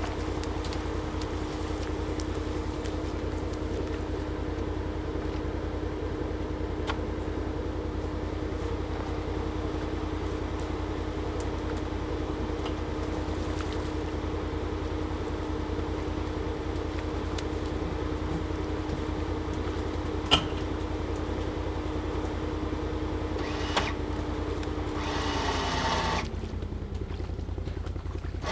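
Can-Am Defender HD10 UTV sitting with its engine running, a low rumble under a steady hum. About twenty seconds in there is one sharp knock. Near the end the hum slides down in pitch and the sound thins out.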